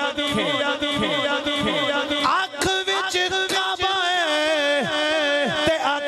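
A man chanting devotional verse in a slow, drawn-out melodic style, holding long notes that waver and glide in pitch, with short breaths between phrases.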